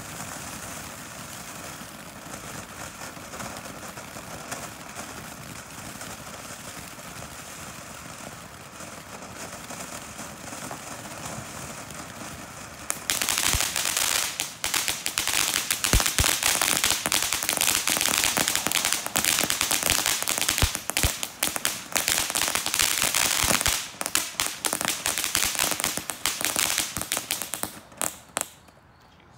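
Ground fountain firework spraying sparks with a steady hiss. About halfway through it breaks into loud, dense crackling and popping, which dies away near the end.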